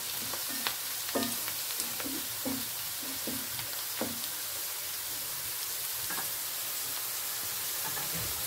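Chopped onions, green chillies and curry leaves sizzling in hot oil in a non-stick frying pan, stirred with a wooden spatula that taps against the pan about twice a second for the first few seconds, then left to sizzle steadily with only an occasional tap.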